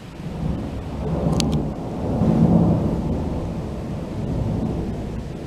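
Thunder rolling: a low rumble that builds from about half a second in to its loudest around two and a half seconds, then rolls on more quietly.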